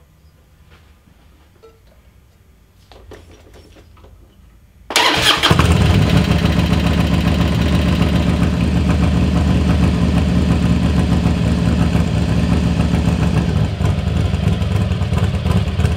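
Carbureted 1999 Harley-Davidson Electra Glide V-twin starting about five seconds in and then idling steadily, with a low pulsing exhaust note.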